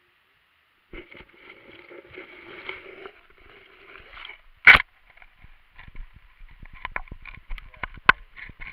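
Underwater sound picked up by a waterproof camera as it is pulled through a pond on a string: muffled water and rubbing noise starting about a second in, one sharp knock near the middle, then a quick run of clicks and knocks against the camera body.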